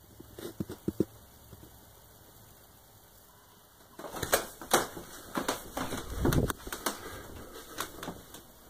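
Handling noise from a handheld camera being swung about: a few quick knocks and clicks about half a second in, then from about four seconds an irregular run of clicks, knocks and dull thumps.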